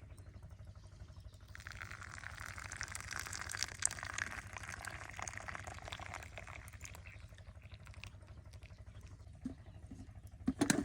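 Tea poured from a pot into a glass: a splashing stream of liquid lasting about five seconds, followed by a few light knocks near the end.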